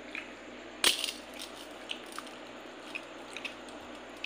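A sharp clink of a steel bowl set down about a second in, then faint scattered clicks and soft squishing as a hand mixes and squeezes water-soaked rice (pakhala) in the steel bowl.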